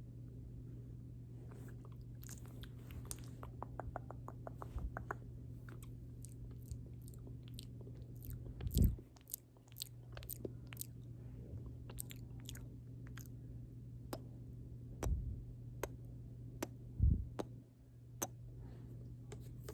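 Close-up wet mouth sounds: scattered lip smacks and clicks, with a quick run of them a few seconds in. Three heavy low thumps stand out as the loudest sounds, and a steady low hum runs underneath.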